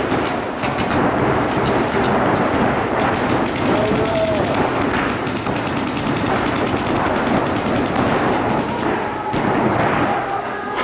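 Paintball markers firing fast strings of shots, several guns at once, in rapid cracking volleys that ease briefly around the middle before picking up again.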